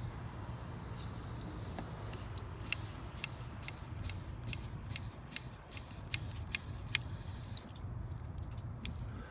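Hose water being forced under pressure into a clogged heater core: a steady low rush with irregular sharp spits and clicks where the hand-held hose end leaks against heavy back-pressure from the clog.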